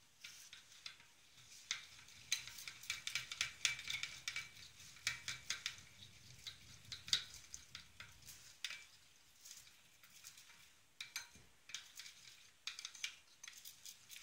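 A metal spoon stirring thick icing-sugar glaze in a bowl to mix in red food colouring, with repeated quick clinks and scrapes of the spoon against the bowl. The clinks are densest in the first half and come more sparsely after that.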